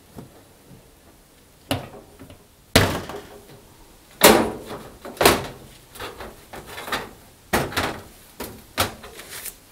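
Dishwasher door swung shut, then a series of separate knocks and clunks from the machine's sheet-metal door and casing being handled. There are about seven in all, the loudest two a little before and after the middle.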